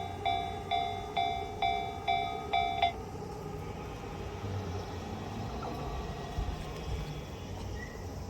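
Japanese level-crossing warning bell ringing in a steady ding-ding, about two strikes a second. It stops about three seconds in, the sign that the crossing is clearing after the train, leaving only a low steady background hum.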